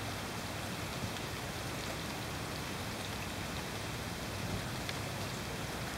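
Steady rain falling on grass and leaves, an even hiss with scattered faint drop ticks.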